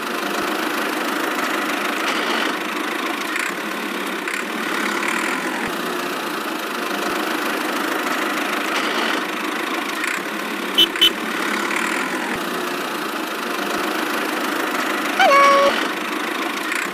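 Steady engine-like running sound of a miniature DIY toy tractor as it drives along towing a loaded trolley. Two short high beeps come about eleven seconds in, and a brief squeaky tone near the end.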